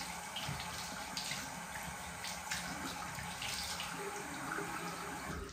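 Bathroom sink tap running steadily, water splashing over a shaving brush as it is rinsed of soap.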